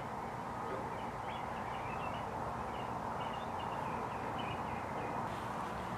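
Small birds chirping in short high calls, again and again, over a steady even hiss of background noise.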